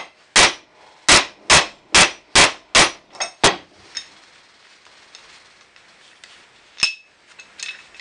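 A heavy mallet driving a new hinge pin into a 1967 Mustang's cast steel lower door hinge braced on a bench vise's anvil: six hard metal-on-metal blows about two a second, then two lighter ringing clinks, the pin almost fully seated. A single sharp metallic clink near the end.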